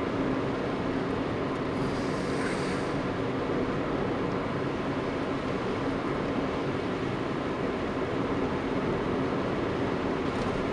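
Steady road and engine noise inside a moving car's cabin: tyre rumble and the engine running at an even cruising speed, with a brief hiss about two seconds in.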